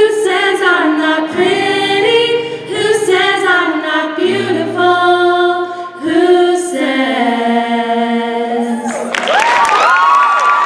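A group of women singing in harmony, closing the song on long held notes. About nine seconds in, an audience bursts into applause and cheering with high-pitched screams.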